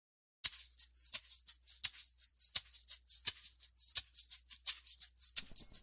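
A shaker playing a steady rhythm of quick shakes, with a stronger accent about every 0.7 seconds: the opening of background music.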